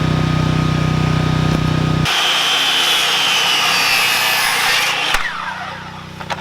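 An engine running steadily, then an abrupt cut to a high-pitched power tool whining for about three seconds before it spins down with a falling pitch.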